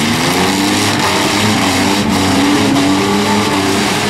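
Several demolition-derby van engines revving hard at once, their pitch rising and falling over a steady din.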